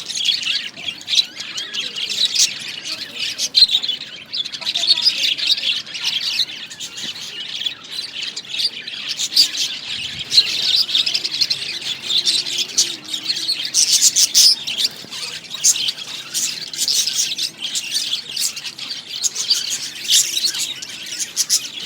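Budgerigars chattering, with a dense, unbroken stream of short high chirps and squawks.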